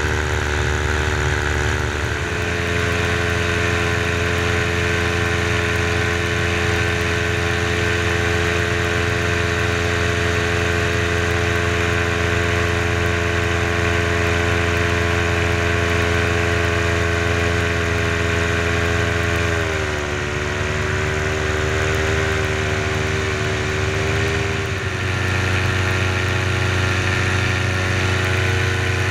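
Paramotor engine and propeller running steadily in flight. The engine note drops about twenty seconds in and picks back up about five seconds later.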